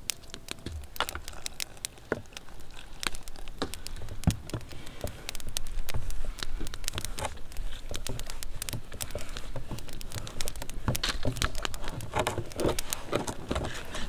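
Hand mixing and kneading flour and water into dough inside a metal mess tin: a steady run of small clicks, taps and scrapes of fingers and knuckles against the tin's walls, busier near the end.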